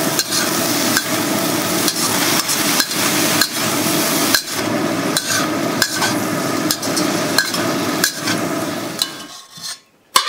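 Broccoli sizzling in a hot wok while a metal spatula tosses it, knocking and scraping against the wok about every half second. The sizzle dies away near the end, and a single clink follows as the food goes onto a plate.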